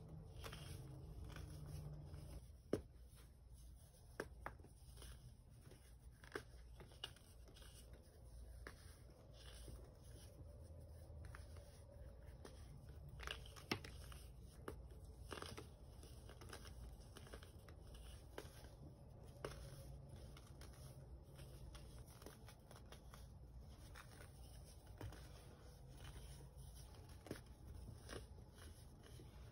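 Hands crushing and crumbling pressed chunks of baking soda: faint soft crunching and crackling, with a few sharper snaps now and then.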